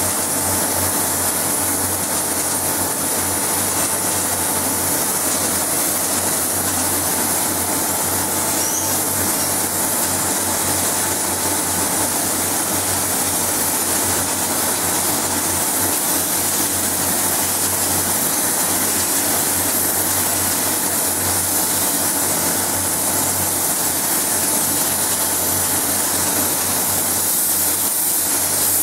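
Steady hiss of compressed air from a paint spray gun, over the rush and low hum of a spray booth's extraction.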